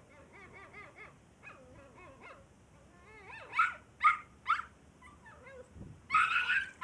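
Small puppy whining in a quick series of short, high, wavering cries, with three louder yelps about three and a half to four and a half seconds in and a louder burst of cries near the end.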